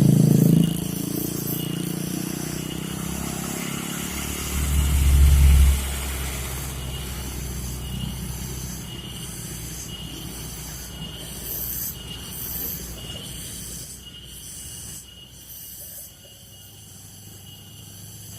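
Heavy loaded dump truck's diesel engine labouring up a steep climb. It is loud at first, with a deep rumble that swells about five seconds in, then fades steadily as the truck moves away.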